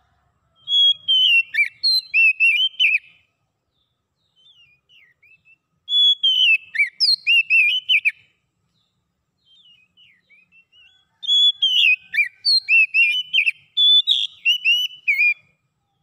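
Oriental magpie-robin singing: three runs of quick, clear whistled notes, each two to four seconds long, with a few soft notes in the gaps between them.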